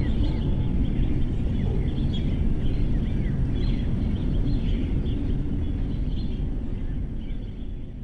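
Birds chirping over and over with short high calls, above a loud steady low outdoor rumble; the sound fades out near the end.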